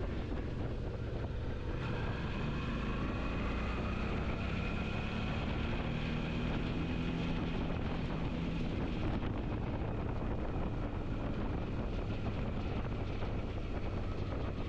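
Suzuki V-Strom 650's V-twin engine running under way, with steady wind noise on the microphone. About two seconds in, the engine note rises gently as it pulls, then sinks back into the wind noise a few seconds later.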